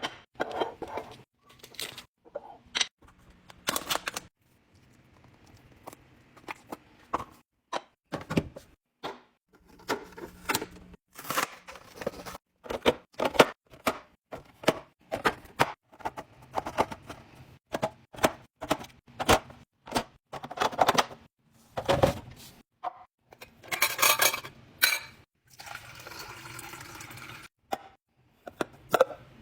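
Containers and packaging being handled while restocking a fridge: a steady run of irregular clicks, knocks and clinks as items are set down and arranged, with a few longer rustling stretches near the end.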